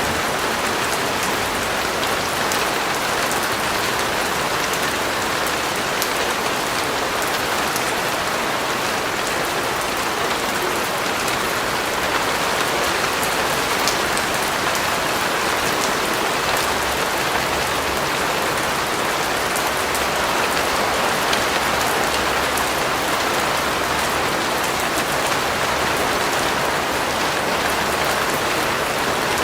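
Steady rain falling on a surface, an even hiss with many fine drop ticks throughout.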